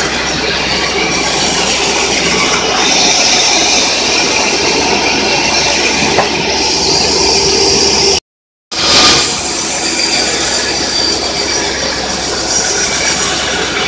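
Mobile band sawmill running and sawing through an acacia log: a loud, steady mechanical noise, with a bright, high hiss from the blade for a few seconds in the middle. The sound cuts out for half a second about eight seconds in.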